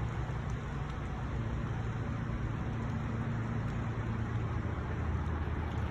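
A steady low mechanical hum over an even background rush of noise, holding the same pitch and level throughout.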